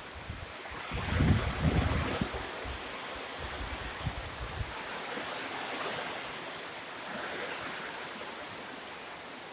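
Hurricane-force wind gusting through trees, a steady rushing that swells and eases. In the first few seconds the wind buffets the microphone with heavy low rumbling, loudest about a second in.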